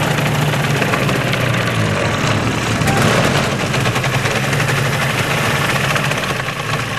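Small piston engine of a homemade ultralight airplane running steadily on the ground, spinning its propeller, with a fast even beat of firing pulses.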